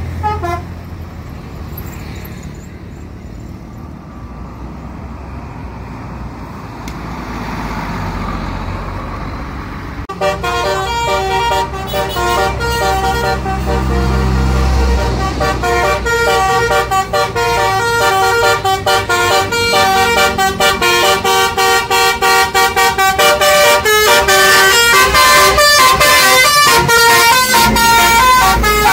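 Tour bus's Basuri melody horn, sounded through roof-mounted trumpets, playing a fast tune of short, stepping notes. It starts about a third of the way in and grows louder toward the end. Before it, a bus engine runs with a low rumble.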